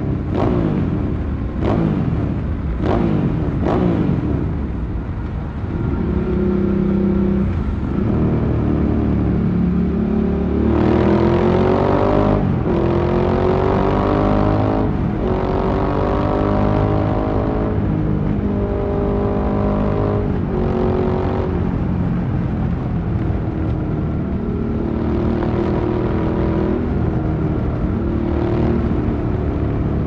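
Ducati Sport Classic's air-cooled L-twin engine heard from the rider's seat in a road tunnel. Revs fall sharply several times in the first few seconds, then climb in several long pulls, each dropping back as the next gear goes in, and settle to a steady cruise for the last several seconds.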